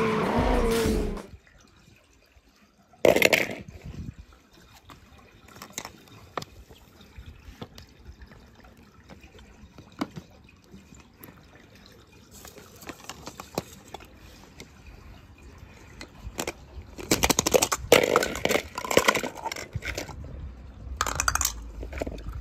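Water splashing and sloshing as toy cars go into water, with scattered small clicks and knocks. There is one loud splash about three seconds in, and a run of louder splashing near the end.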